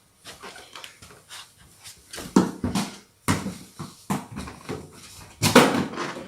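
A small football bouncing and knocking on the floor, several irregular thuds, with the loudest and longest about two thirds of the way through.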